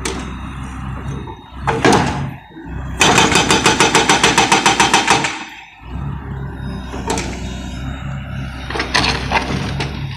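Excavator diesel engine running, with the hydraulic breaker hammer firing a rapid burst of about nine blows a second for roughly two seconds, starting about three seconds in. The breaker is being test-fired after its nitrogen charge pressure was adjusted.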